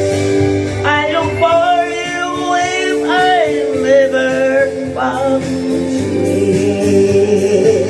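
Music: the closing bars of a sung cover song, a steady accompaniment under a melodic line that slides and bends between about one and five seconds in.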